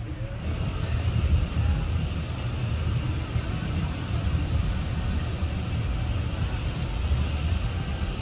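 Hot air balloon propane burner firing in one long steady blast, a hiss that starts just under half a second in, heating the air to stand the envelope up during hot inflation. A constant low rumble runs underneath.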